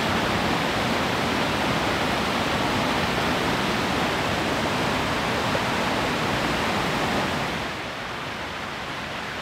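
Waterfall on a small stream in full flow: a steady rush of falling, churning water that drops to a lower level about eight seconds in.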